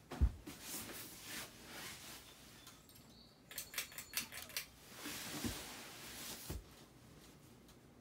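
Handling sounds at a ceiling fan: a low thump, rustling, then a quick run of metallic clicks and rattles in the middle as a pole works the fan's pull chain, followed by more rustling and two dull thumps.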